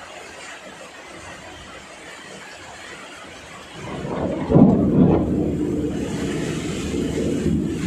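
Rain falling steadily, then thunder about halfway through: a low rumble builds, peaks sharply, and keeps rolling on.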